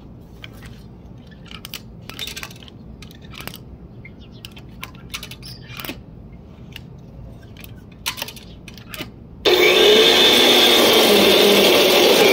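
Faint scattered ticks, then a corded electric tiller's motor switching on suddenly about three-quarters of the way in and running with a loud, steady whir.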